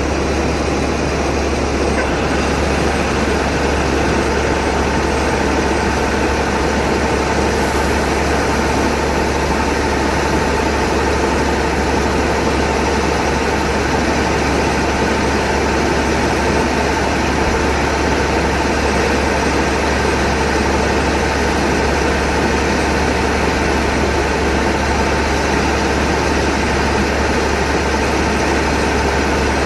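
LS MC85 combine harvester running steadily, its engine and machinery holding a constant, even pitch.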